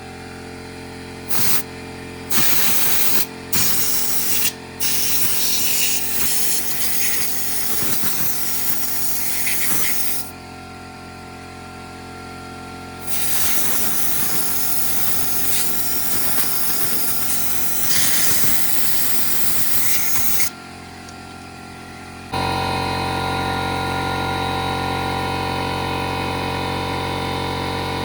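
Sharp bursts of spraying hiss, switched on and off: a few short ones, then two long ones of several seconds each. Near the end a steady machine hum starts and runs on.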